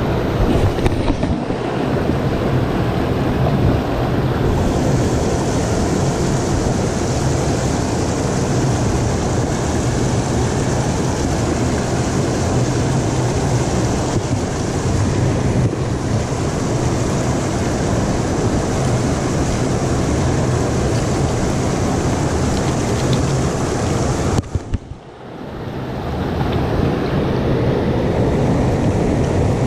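Mountain stream rushing over rocks in a steady rapid, heard close at the water. About 25 seconds in the sound drops and turns muffled for a second or two, then comes back.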